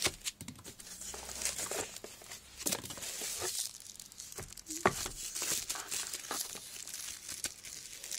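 Plastic packaging crinkling and rustling as hands handle a drive wrapped in a pink anti-static bubble-wrap bag, with scattered sharp clicks.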